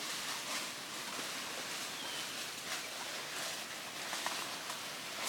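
Outdoor ambience: a steady hiss with a few faint snaps or clicks, and a brief faint bird chirp about two seconds in.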